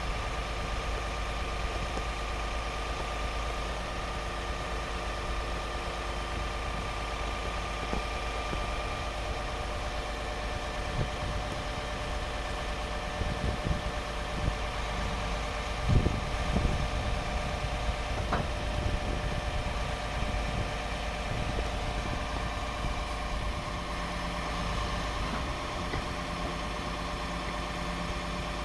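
PACCAR PX-8 8.3-litre diesel engine of a 2012 Peterbilt 337 idling steadily while it drives the hydraulic crane, which is unfolded and raised. A few short knocks come around the middle, the loudest about halfway through.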